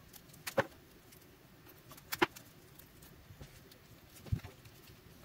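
A few light clicks and knocks, a second or two apart, as an opened DeWalt FlexVolt battery pack is handled and picked at by hand on a wooden bench, the sharpest one near the end.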